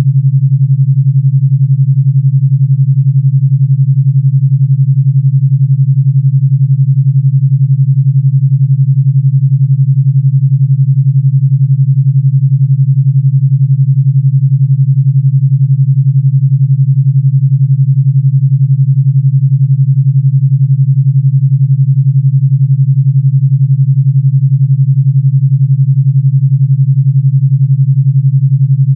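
Synthesized 141 Hz pure tone with an 11 Hz alpha beat: one steady low hum with a fast, even throb.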